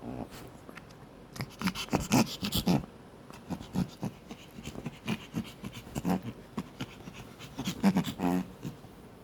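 Tiny Pomeranian pup panting and huffing in quick, stressed puffs, a chugging sound like a train, with a short pitched whine about 8 seconds in.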